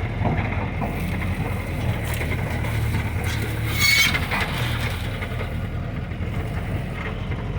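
Old Jeep crawling off-road, its engine running low and steady with the body rattling and creaking over rough ground. A brief scrape comes about four seconds in.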